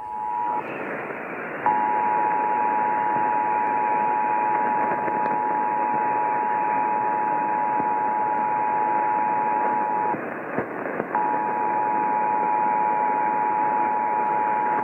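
Emergency Alert System attention signal: the steady two-tone alert tone sounding over a hiss of broadcast static, heard during a Required Monthly Test. It drops out briefly about half a second in and again around ten seconds in.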